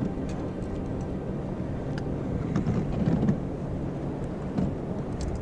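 A boat's motor running with a steady low hum, with a few light clicks and knocks over it.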